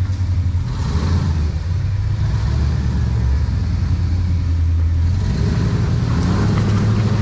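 Off-road rock crawler's engine running at low revs as it crawls over rocks, then revving up with a rising pitch over the last couple of seconds.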